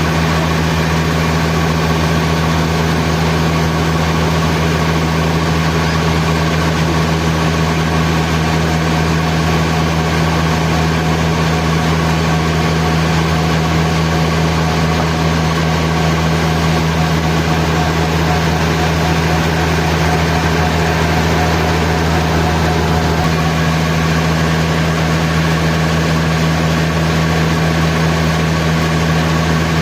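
Sawmill machinery running steadily with a constant low hum and an even mechanical noise over it; a higher tone in the hum shifts slightly a little over two-thirds of the way through.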